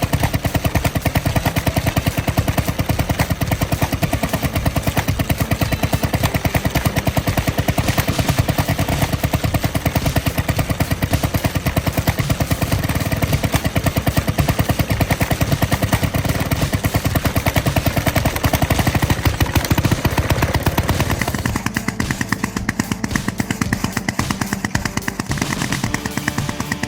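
Vaughan Model L drag saw's 3.5-horsepower two-cycle engine running, a loud, fast, even popping, with a change in tone near the end.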